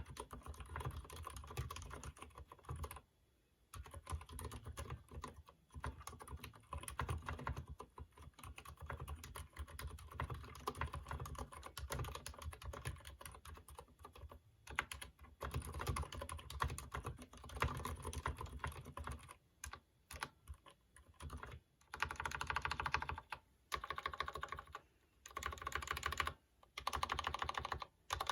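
Typing on a Durgod keyboard with unlubricated Cherry MX Silent Red switches: a dense, continuous run of soft key presses. In the last several seconds it changes to repeated presses of the stabilized long keys, in short, louder groups with brief pauses between them.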